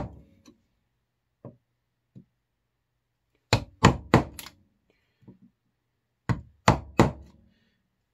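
Mallet striking a wood chisel to chop down along a scored line in plywood. There are a few light taps, then four sharp strikes in quick succession about three and a half seconds in, and three more near the end.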